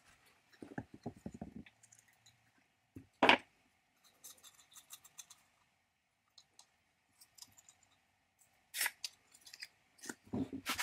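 Rusty metal switch box and its parts handled and taken apart by hand on a wooden workbench: scattered clicks, scrapes and light knocks. One louder knock comes about three seconds in, and more knocks and clatter near the end.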